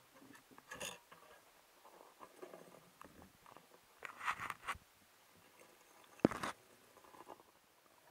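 Underwater scrapes, crunches and clicks of a freediver's gear and gloved hands against rock, heard through the camera housing, with one sharp knock about six seconds in.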